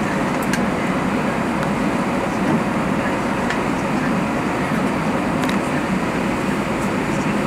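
Steady cabin noise inside an Airbus A320-200 standing on the runway with its engines idling: an even hum and hiss of engines and air-conditioning, with a few faint clicks.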